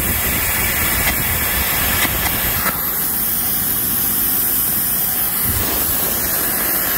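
Air carbon arc gouging torch working along a steel column connection seam: a loud, steady hiss of compressed air with the arc's crackle as it gouges out the weld so the connection can be removed.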